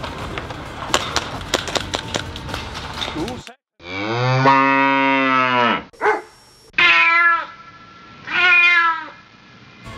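Rapid clicks and knocks, then the sound cuts out about three and a half seconds in and a long drawn-out low call follows, then two shorter calls that drop in pitch at the end, much like mooing or meowing.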